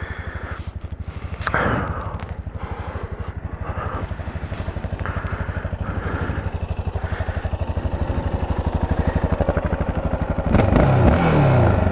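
Motorcycle engine idling with a steady, rapid pulsing beat, with one sharp knock about a second and a half in. Near the end the engine gets louder and its pitch shifts.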